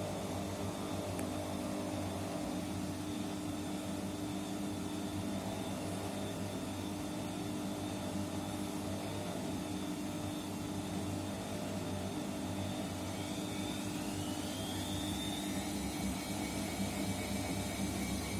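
Washing machine running: a steady motor hum, with a high whine that glides up in pitch near the end.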